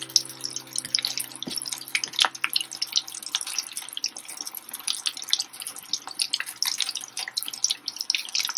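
Gram-flour-battered fish pakoras deep-frying in hot oil: a dense, steady sizzle with irregular crackles and pops from the bubbling oil.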